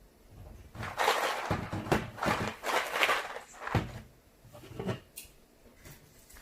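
Snack wrappers being handled and cut open: crinkling and rustling in two main stretches, with a few sharp clicks.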